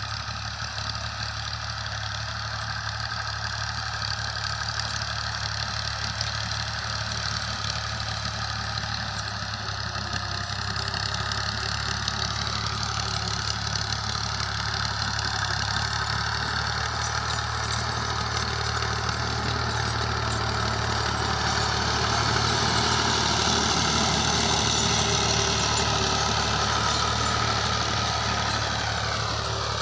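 Tractor engine running steadily, growing louder over the first two-thirds and easing off a little near the end.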